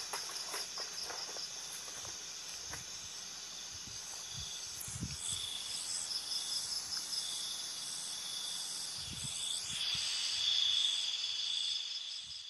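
Night insect chorus: several high, steady and pulsing trills going on together, growing louder about ten seconds in. A few soft footsteps come near the start.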